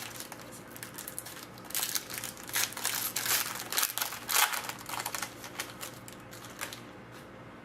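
A hockey card pack wrapper crinkling and tearing as it is opened by hand, with the cards handled. The crackling comes in irregular clusters, busiest in the middle and thinning out near the end.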